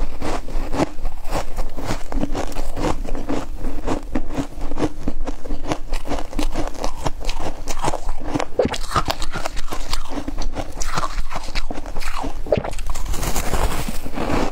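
Close-miked biting and chewing of a block of compacted freezer frost: dense, continuous crunching and crackling of the ice in the mouth, with a fresh bite near the end.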